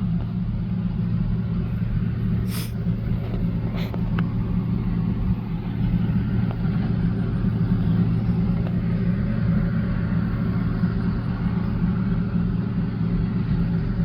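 Heavy engine of harvest machinery running steadily at a constant speed, a low, even drone with a couple of faint clicks.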